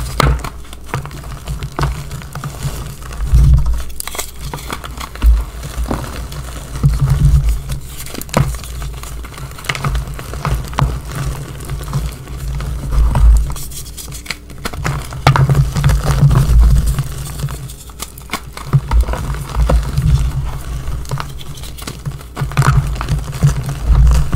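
Hands crushing and squeezing pressed gym-chalk reforms into loose powder: irregular crunching and crumbling with a crisp crackle, over dull thuds as the hands press into the chalk bed.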